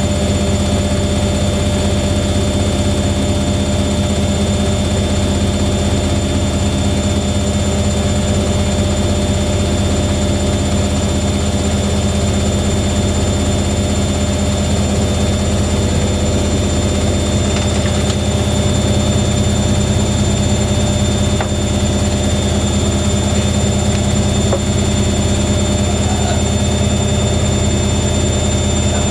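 Washing machine running, a loud steady motor whine and drum hum with several constant tones.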